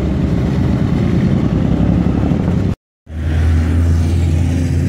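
Car engine running loud and low as a car pulls out. About three seconds in the sound drops out for a moment, then a steady deep engine drone takes over.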